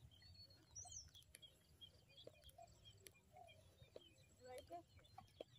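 Near silence with faint, scattered bird chirps, one brief high whistle about a second in.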